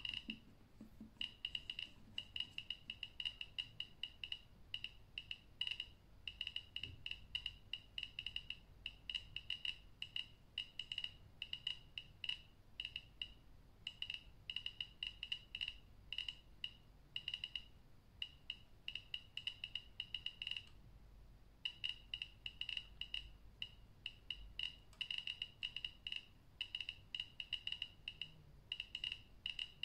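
Handheld radiation detector chirping with each detected count: short high-pitched beeps, several a second at irregular, random spacing, with a couple of brief pauses. The clicks register radiation from a radium-painted watch dial while the dose-rate reading climbs.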